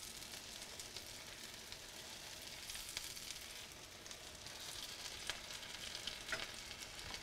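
Egg-battered chicken cutlets sizzling as they fry in olive oil in a skillet, a steady, fairly faint hiss. A few light clicks of a spatula and fork against the pan as the pieces are turned.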